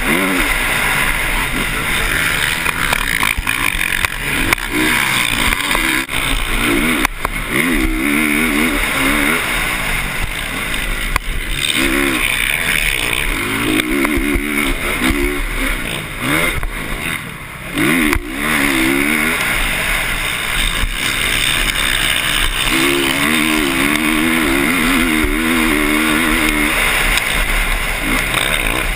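Motocross dirt bike engine at race pace, heard close from an onboard camera, revving up and down again and again through the gears. The throttle briefly shuts off about two-thirds of the way through before the engine picks up again.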